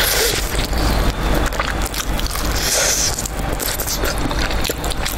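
Close-miked eating: biting and chewing pieces of sauce-coated spicy fried chicken, with many quick wet mouth clicks and crackles.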